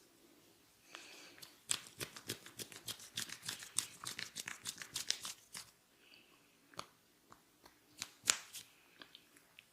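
Close-up crackling and clicking of a barber's hands working the hair and scalp during a head massage: a fast run of sharp crackles for about four seconds starting a second in, then a few single clicks near the end.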